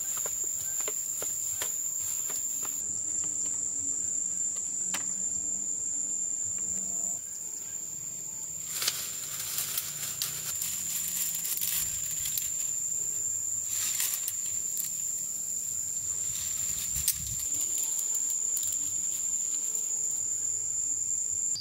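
Insects droning outdoors: one steady, high-pitched buzz that holds unbroken, with a few brief rustles now and then.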